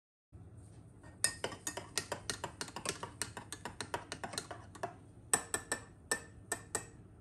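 Metal teaspoon clinking against the inside of a ceramic mug while stirring coffee: a quick run of light clinks at about five a second, a short pause, then a few more spaced clinks.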